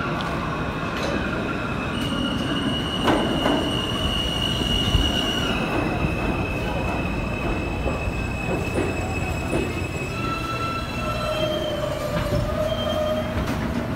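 R160-series subway train pulling into the station and braking, its cars rumbling past with a high, steady metallic squeal from the wheels and brakes that drops a step in pitch partway through. Lower tones join about ten seconds in as the train slows toward its stop.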